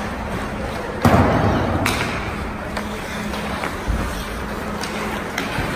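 Sounds of ice hockey play in an arena: a sharp, loud knock about a second in, then a lighter click, a low thump a few seconds later and a few faint clicks. A steady low hum runs underneath.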